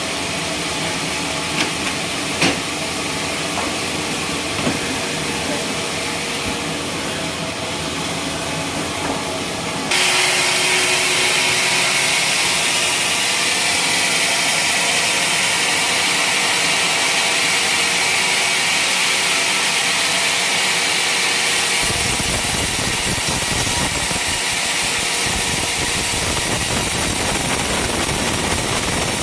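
Sawmill wood-sawing machine running with a steady mechanical hiss; about ten seconds in, the sound jumps abruptly louder and hissier, and a deeper rumble joins it about twenty-two seconds in.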